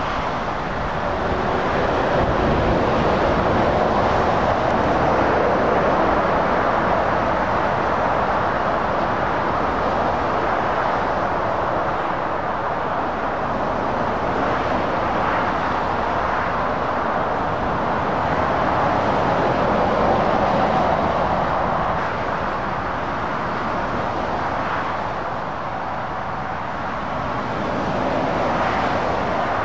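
Steady road-traffic noise from lorries and cars passing on a busy dual carriageway: tyre noise and diesel engines, swelling and easing as vehicles go by.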